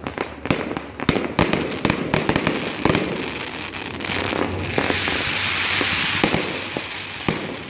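Fireworks going off in a rapid, irregular series of sharp bangs and pops. About halfway through, a dense hissing crackle swells up and lasts a couple of seconds.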